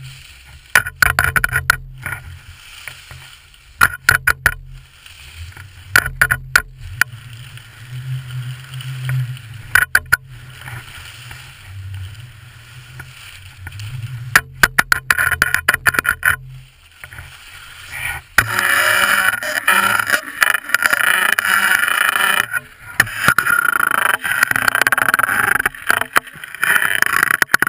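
Skis running over groomed snow, with a low rumble of wind on the camera and bursts of sharp clattering knocks. From about two-thirds of the way through, a louder, steady hiss of snow scraping takes over.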